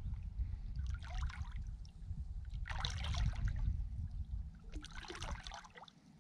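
River water splashing and trickling around hands holding a large asp in the shallows, in three short bursts about two seconds apart, over a low steady rumble.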